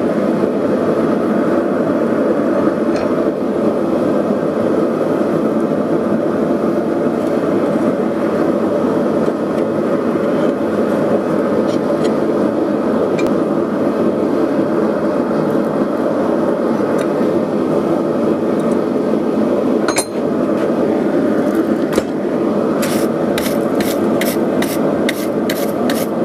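A steady roar of a gas burner heating the steel. Near the end, a run of fast, even hammer blows on the hot steel at the anvil, about three a second.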